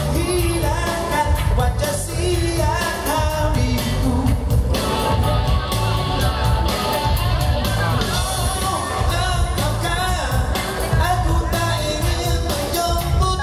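A male singer singing a Malay pop song live into a microphone over band music with a steady drum beat.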